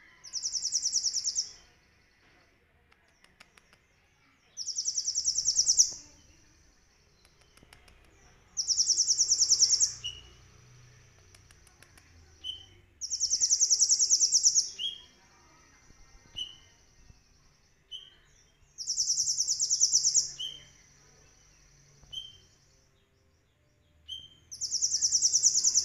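Caged male Van Hasselt's sunbird (kolibri ninja) singing: six loud, high, fast buzzy trills of about a second and a half each, coming every four to five seconds, with short thin rising chips between them. The keeper presents this song as filled with imitated cililin phrases.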